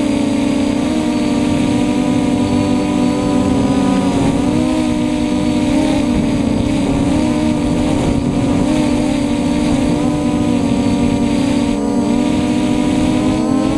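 Custom F330 quadcopter's brushless motors and propellers, heard from on board, droning with a buzzing whine whose pitch wavers up and down as the throttle changes in flight.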